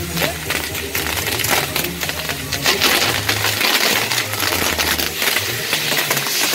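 Firework castle (castillo) burning: its spinning pinwheels and fountains hiss, with dense, rapid sharp crackling.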